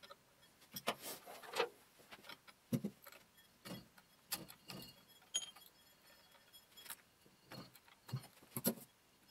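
Light metal clinks and knocks at irregular intervals as the Boxford lathe's motor pulley and countershaft assembly is handled and taken apart by hand.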